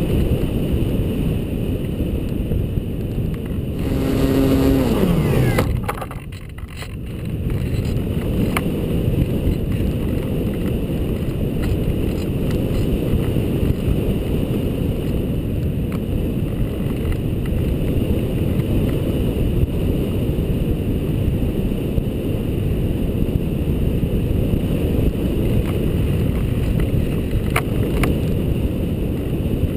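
Wind buffeting over the camera on a ParkZone Radian RC glider in flight, a steady low rumbling rush. About four seconds in, the Radian's electric motor whines briefly and then spins down, its pitch falling.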